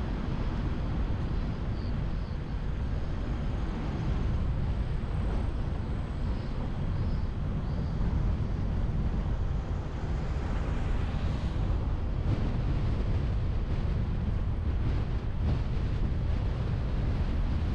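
Steady low rumble of a car driving on the road, with wind buffeting the camera's microphone.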